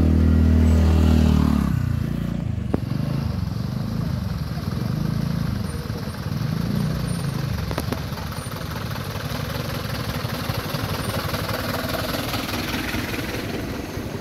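A loud low steady tone for about the first two seconds, then road traffic: motorcycle and car engines running and idling close by in slow-moving traffic.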